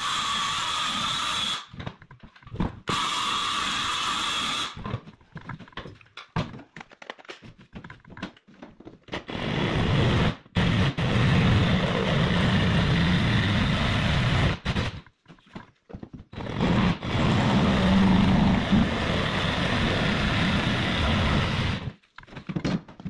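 Circular saw with its blade set about half an inch deep, cutting a slot into a wall. It runs four times: two short runs near the start, then two longer runs of about five seconds each, with scattered knocks and rattles in between.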